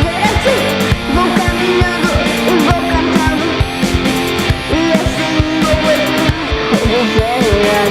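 Rock music with guitar and drums playing at a steady beat.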